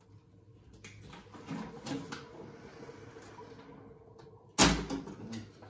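Handling noise: a sheet of paper rustling and sliding against the glass of an empty aquarium, with one sharp, loud knock a little before the end.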